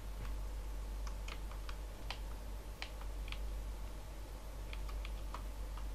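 Computer keyboard keys and mouse buttons clicking in short irregular clusters, over a low steady hum.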